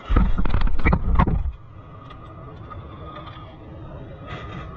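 Loud knocks and rumbling close to the microphone for about a second and a half during car suspension work, then a quieter workshop background with a faint steady high hum.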